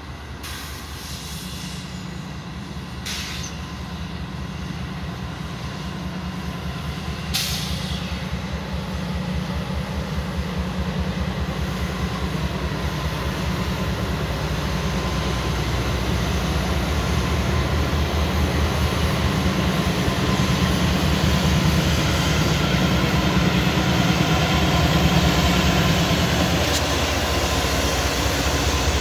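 Diesel freight train approaching, the rumble of its locomotives growing steadily louder, with a faint steady tone above it. Two brief sharp clicks come in the first several seconds.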